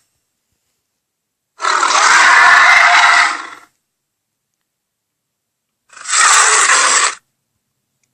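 Two monster roar sound effects for an imaginary creature, noisy and harsh: the first about two seconds long starting a little over a second in, the second shorter, near the end, with dead silence between them.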